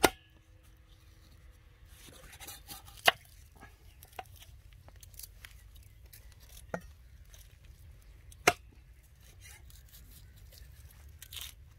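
Peeling red onions with a knife: soft scraping and tearing of the dry skins, with a few sharp single knocks of the knife against a wooden board, the loudest right at the start, about three seconds in and about eight and a half seconds in.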